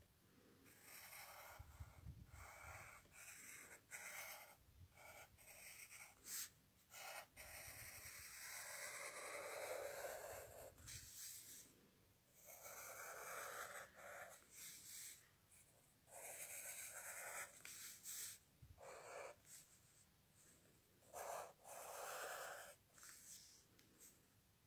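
Faint scratching of a pen drawing lines on paper, in irregular strokes of about a second or two with short pauses between them.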